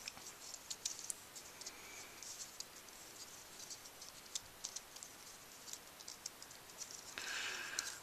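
Faint, irregular clicking of the pieces of a plastic VeryPuzzle Snow Mystery twisty puzzle, turned by hand as it is scrambled.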